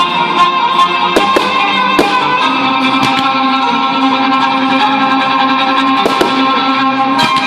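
Music playing steadily over a fireworks display, with sharp firework bangs cutting through it about eight times, in pairs around a second in and six seconds in, and a single bang near the end.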